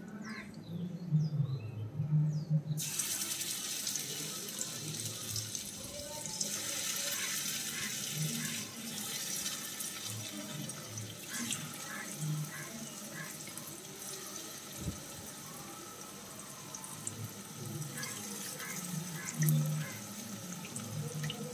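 Pieces of spice-marinated tuna shallow-frying in hot oil. A sizzle starts suddenly about three seconds in as the fish goes into the pan, then carries on as a steady sizzle with scattered pops and crackles.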